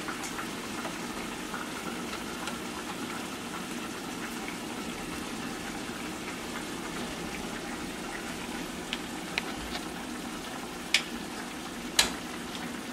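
Kitchen tongs clicking a few times while bananas are lifted onto a plate, the two sharpest clicks near the end, over a steady background hiss.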